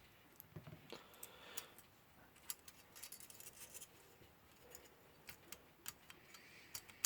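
Near silence with faint, irregular clicks of small clock-movement parts being handled and fitted by hand.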